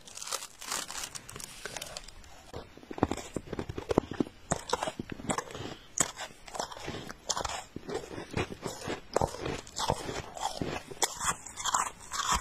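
Close-up crunching of packed snow being bitten and chewed: a quick, irregular run of crisp crunches.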